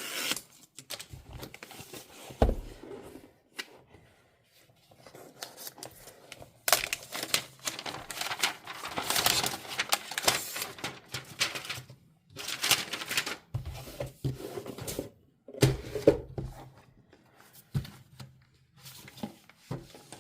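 Apple Magic Keyboard packaging being opened by hand: irregular bursts of tearing, crinkling and rustling, with a sharp knock about two and a half seconds in and the longest, loudest stretch of tearing in the middle.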